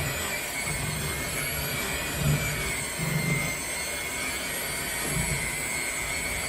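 Electric mixer running steadily with a constant whine, beating icing in a bowl.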